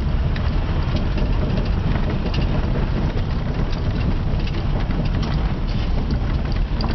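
A 3.0-litre Buick V6 in a 1984 Oldsmobile Cutlass Ciera, running steadily as the car rolls along at low speed. The engine has a rod knock from burned rod and crankshaft bearings.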